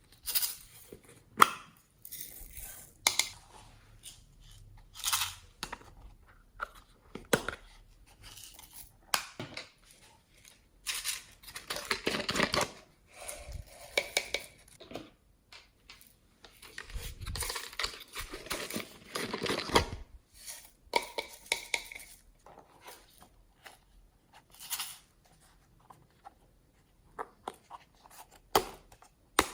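Glossy slime being mixed and stretched by hand with clay, glitter and foam worked in, giving irregular sticky clicks and pops, with longer crackly stretches near the middle.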